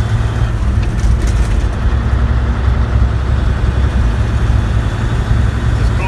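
Peterbilt 359 semi truck's diesel engine running while under way, heard from inside the cab: a steady, deep rumble with road and cab noise over it.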